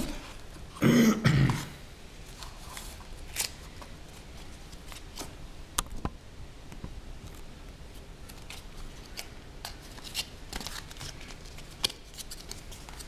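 Hands handling a smartphone's retail box and packaging: scattered clicks, taps and light rustles. There is one brief loud noise about a second in.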